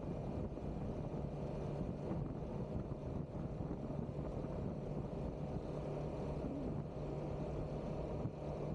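Steady drone of a motorbike under way: the engine running at an even speed, with road and wind noise.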